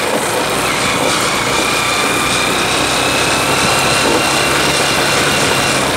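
Small motorcycle engine running steadily while the bike is ridden along, with a constant rush of wind and road noise.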